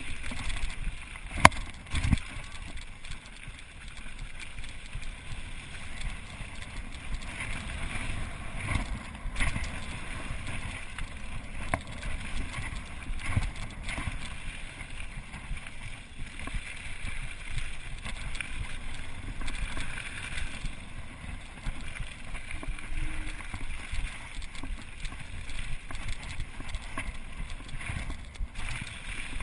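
Mountain bike rolling fast down a loose gravel trail: tyres crunching and rattling over the stones, with the bike jolting and giving off sharp knocks over bumps, the loudest about a second and a half in. Wind rushes over the microphone.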